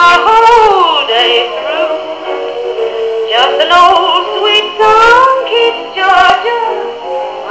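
A Paillard Maestrophone Model 206 gramophone, turned by its Stirling hot-air engine at about 78 rpm, playing a record of a singer. The voice glides through sung phrases and sounds thin, with no bass.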